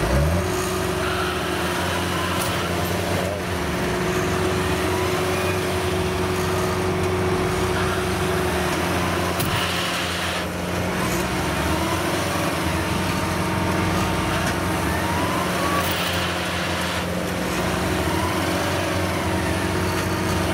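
Heavy farm machine engines revving up and then running steadily under load as a tractor pulls a combine harvester out of deep mud, with a few short rising whines now and then.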